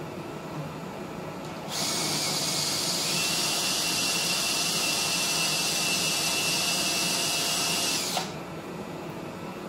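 A cordless power tool running against the steel frame of a welding table. It starts about two seconds in, runs steadily with a thin high whine joining a second later, and cuts off after about six seconds.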